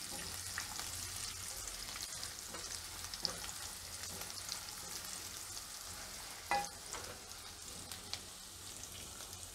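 Green chillies, cashews and raisins sizzling gently in a little hot oil in a pan, stirred with a silicone spatula. A brief louder knock comes about two-thirds of the way in.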